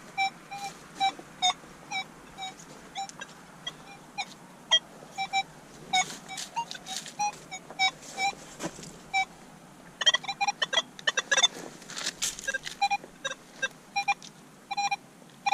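Metal detector giving short, high beeps as its coil is swept over the ground, with scattered clicks between them. From about ten seconds in the beeps come thick and fast, as it sounds off repeatedly over a target.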